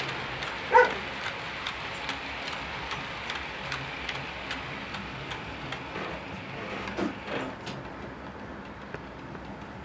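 HO-scale model freight train rolling past, its wheels clicking over the rail joints about two or three times a second over a steady rumble, fading near the end as the last wagons pass. A brief high-pitched tone sounds about a second in.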